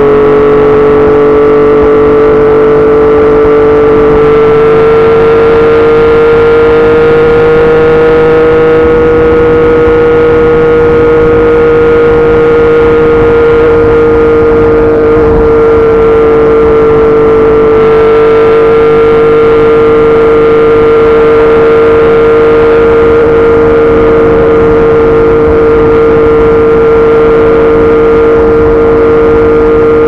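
Yamaha MT-09's inline three-cylinder engine through a Yoshimura R55 slip-on exhaust, heard while riding at a steady cruise: an even engine tone that rises slightly in pitch over the first several seconds and then holds steady, with road and wind noise underneath.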